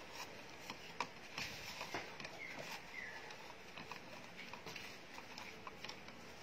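Faint handling noise: scattered light clicks and taps, with a couple of short faint squeaks, as a wet plastic doll wrapped in tissue is worked up through the neck of a plastic bottle of water.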